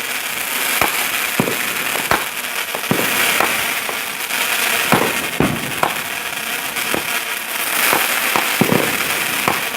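Consumer fireworks going off: a steady hissing crackle with irregular sharp pops and bangs scattered through it.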